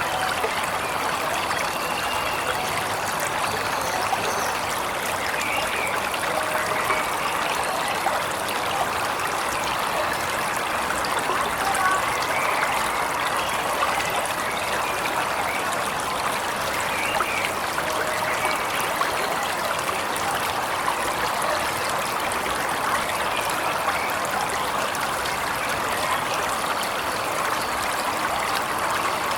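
Waterfall water splashing and trickling in a steady, unbroken rush, with a few faint bird chirps now and then.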